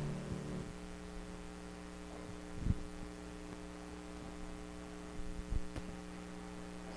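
Steady electrical mains hum, a low buzzing drone, after the last of the music dies away in the first half second. Two soft thumps are heard, about a third of the way through and again near the end.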